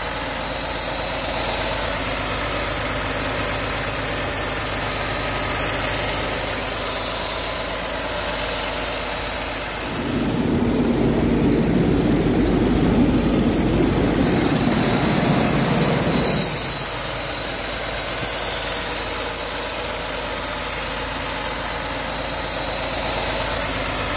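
Cummins X15 inline-six diesel in a Kenworth W900L idling steadily, with a steady high whine over the engine note. From about ten to sixteen seconds in, the whine drops out and a louder, rougher low engine noise takes over, then the whine returns.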